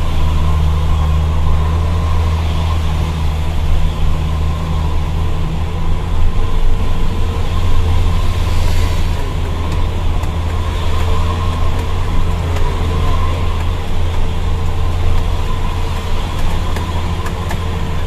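Fuso Fighter dump truck's diesel engine running steadily under way, a constant low drone with road noise, heard from inside the cab.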